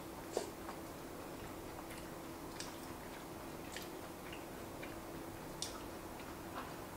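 Dwarf rabbit chewing dry food: crisp, irregular crunches about a second apart over a faint steady hum.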